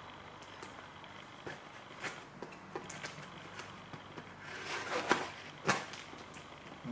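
A cardboard shipping box being opened with a knife: scattered light taps and scratches on the cardboard, a short scraping rasp about five seconds in as the blade works at the packing tape, and a sharp click just after.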